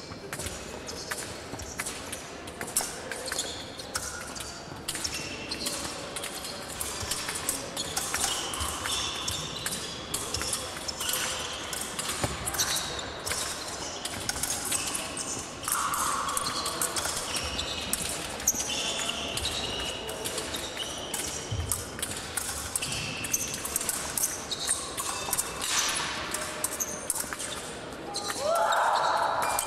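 Fencing competition hall ambience: scattered clicks and knocks of footwork and blades, short high shoe squeaks on the hard floor, and background voices across the hall, with louder rising squeaks near the end.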